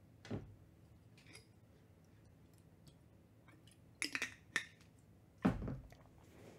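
Trading cards being handled and flicked through: scattered light clicks, a quick run of them about four seconds in, and a louder tap about five and a half seconds in.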